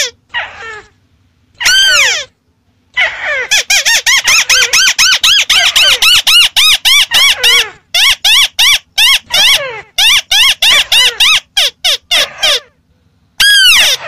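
Crakes calling: a fast, chattering run of short, harsh call notes, several a second, each note rising and falling in pitch. A single call comes about two seconds in, then after a short gap the dense run starts and goes on until near the end, where a brief pause is followed by another call.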